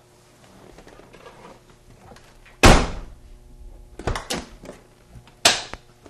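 Driver's door of a 1996 Ford Explorer shut with a loud thunk about two and a half seconds in, then opened from the inside with its newly installed interior door handle: a few quick latch clicks, then another sharp knock shortly before the end.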